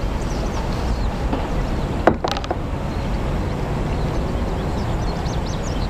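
A kayak paddle knocks against the kayak's plastic hull about two seconds in, a sharp knock with a smaller one right after, as it is laid down. Under it runs a steady low rumble of wind on the action-camera microphone.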